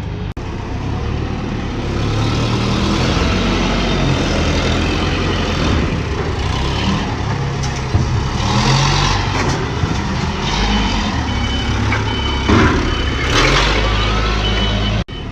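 Forklift engine running and revving as it works unloading a truck, with a couple of knocks partway through and a high intermittent beeping in the last few seconds.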